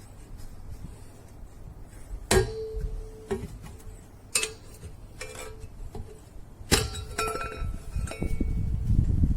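Metal clanks from work on a refrigerator compressor's steel housing: three sharp strikes, each with a short ringing tone, among lighter tool clicks and handling. A louder rumbling noise builds near the end.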